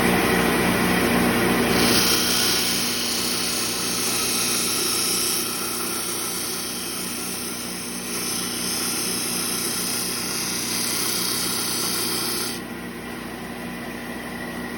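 Stationary power sander running with a steady hum; from about two seconds in until near the end a louder, hissing grind as a cut curve is pressed against the abrasive and sanded smooth, after which the machine runs on alone.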